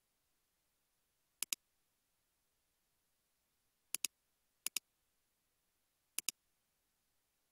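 Computer mouse clicking four times, each a quick pair of sharp clicks, over near silence.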